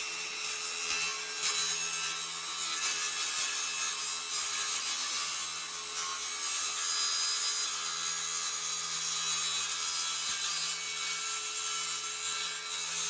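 Circular saw running through one long, steady cut.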